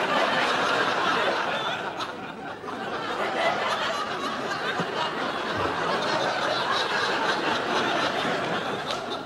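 Studio audience laughing, a loud swell of laughter that comes in sharply at the start, dips slightly after a couple of seconds, then carries on and eases off a little near the end.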